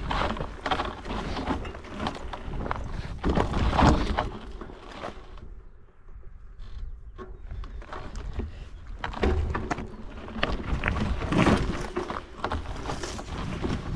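Mountain bike rolling downhill over a rocky, gravelly dirt trail: knobby tyres crunching over stones and the bike clattering and rattling over the bumps. About halfway through it goes much quieter for a couple of seconds, then the clatter picks up again.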